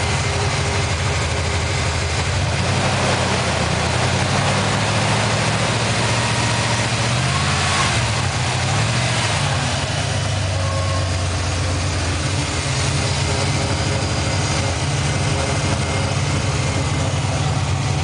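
Fuel-injected Ford 302 (5.0-litre) V8 from a 1994 Mustang idling steadily, heard from the open engine bay.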